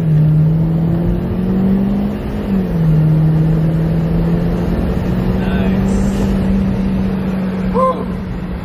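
Hyundai Genesis Coupe 2.0T's turbocharged four-cylinder pulling under hard acceleration with a freshly fitted K&N cold air intake, heard from inside the car. The engine pitch climbs and drops sharply with an automatic upshift right at the start and another under three seconds in, then holds nearly steady.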